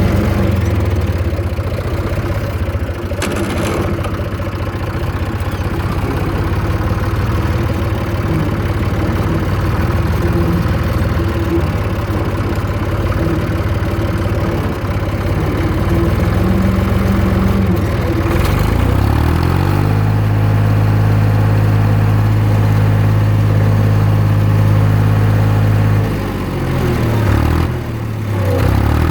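Zetor 3320 tractor's diesel engine running steadily, then revving up a little past halfway and holding the higher speed for several seconds before dropping back and rising and falling near the end.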